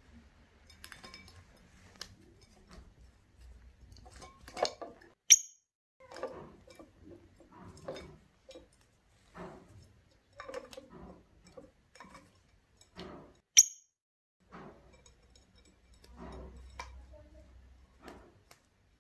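A masked lovebird tapping and clinking about a shallow glass dish of water, with scattered short knocks throughout. Two sharp, loud, high chirps come about five and thirteen seconds in.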